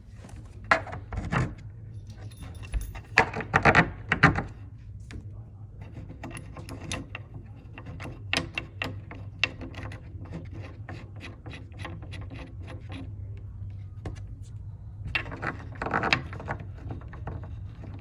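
Metal bed-frame hardware (screws, bolts, fittings) clinking and rattling, with knocks as parts are handled and fitted, in clusters about a second in, around three to four seconds in, and near the end, over a low steady hum.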